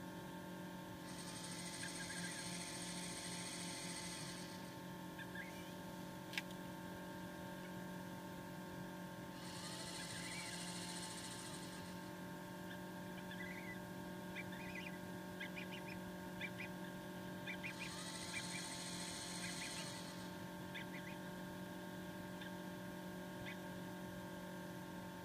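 Incubator's automatic humidity water pump buzzing in three spells of about three seconds each, about eight seconds apart, over the incubator's steady hum. Faint short peeps come from the Emden gosling hatching inside.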